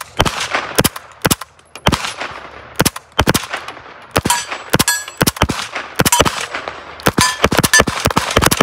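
MP5 SD-pattern 9mm submachine gun with its integral suppressor, fired in a quick string of single shots, several a second at an uneven pace. Some shots are followed by a short metallic ping.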